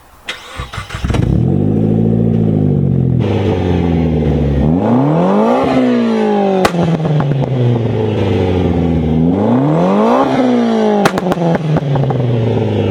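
Turbocharged four-cylinder of a modified, roughly 500 hp Mitsubishi Lancer Ralliart, run up from a low note and then revved sharply twice. Each time the revs climb quickly and fall away slowly, with a few sharp cracks as they drop.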